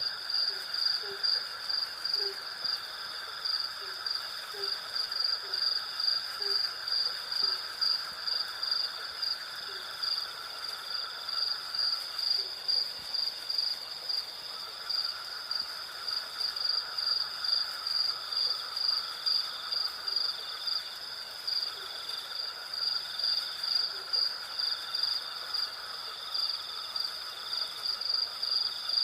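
Night chorus of crickets and other insects: a steady, rapidly pulsing high-pitched trill layered over other continuous chirring, with short low notes repeating about once a second early on and only occasionally later.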